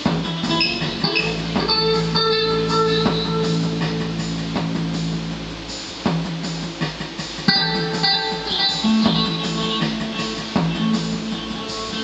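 Electric guitar, a Tokai TST 56 HSS, played through a Fender G-DEC amp on a spacey delay setting: notes picked one after another over sustained low notes from the amp's backing track.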